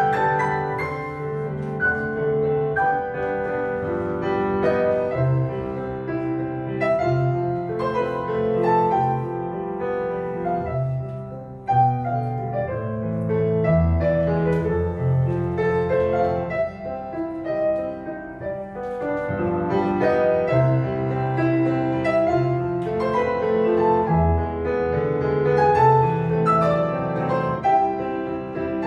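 Solo piano playing classical ballet-class accompaniment in a steady metre, with a short break between phrases about twelve seconds in.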